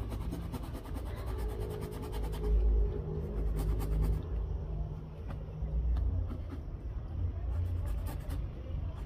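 Short saw blade of a 9-in-1 multitool cutting by hand through a wooden broom handle: rasping back-and-forth strokes, quickest in the first two seconds, over a low rumble.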